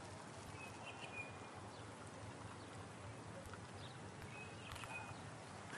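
Quiet outdoor ambience with a faint steady background hiss, broken twice by a short, faint high chirp, about a second in and again near the end.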